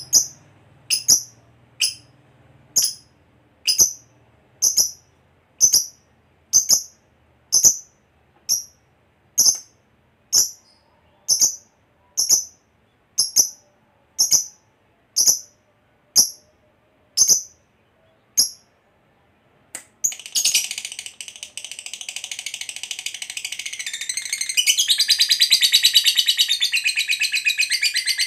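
Lovebird giving short, sharp single chirps about once a second, then, after a brief pause about two-thirds of the way through, breaking into a long, unbroken rapid high chatter, the long ngekek song prized in fighter lovebirds, which grows louder a few seconds later.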